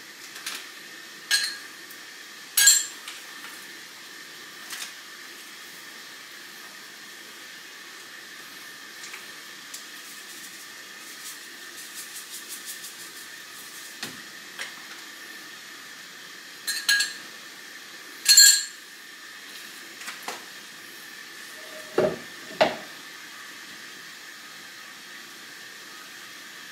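Food containers and a bottle being handled on a kitchen counter while meat is marinated: scattered clicks, clinks and knocks of plastic and glass, the loudest about three seconds in and twice around the middle, with a short run of fast light ticking, over a faint steady hiss.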